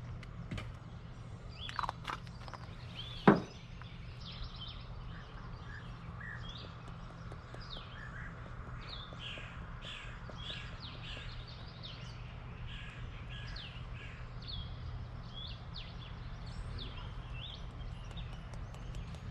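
Outdoor birdsong: many short chirps and calls from several birds. A single sharp knock about three seconds in is the loudest sound, with a steady low hum underneath.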